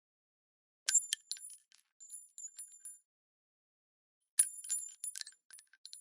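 Small brass shell casings dropping onto a hard floor: two falls, each a bright metallic clink followed by a few smaller bounces with a high, thin ringing.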